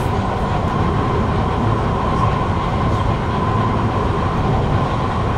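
Kawasaki Heavy Industries C151 metro train running at a steady speed, heard inside the carriage: a steady rumble of wheels and running gear, with a steady whine over it.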